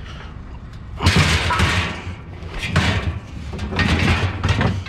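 Scrap metal items, a chair among them, being handled and loaded: clattering, scraping and thudding that starts about a second in and goes on irregularly.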